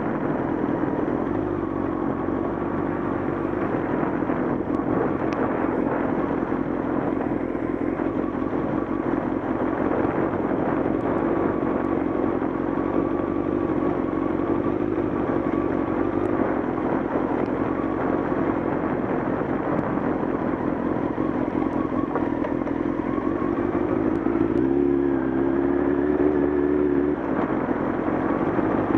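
Motorcycle engine running steadily while riding along a gravel road. The engine note changes for a couple of seconds near the end.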